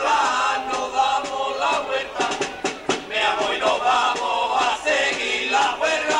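A carnival murga, a group of men, singing together in a chant-like unison, with sharp beats throughout.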